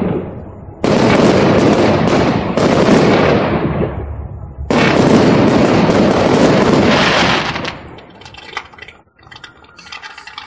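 Aerial fireworks shells bursting: three loud bangs, just under a second in, near three seconds and near five seconds, each trailing off in a long crackling tail, with fainter scattered crackling near the end.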